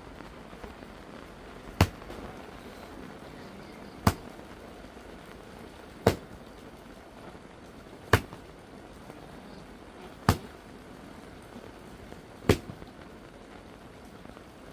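Six sharp, evenly spaced knocks, about one every two seconds, over a steady background hiss.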